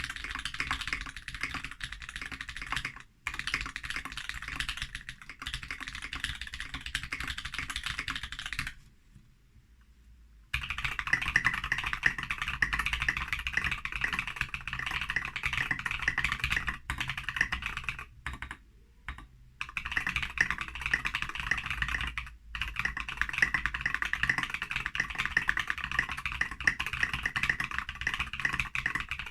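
Steady, fast typing on a Foxlabs Key65 mechanical keyboard with lubed Holy Panda tactile switches in an aluminium plate. The typing stops for about two seconds roughly a third of the way in. It then resumes louder and brighter, with a couple of brief pauses later.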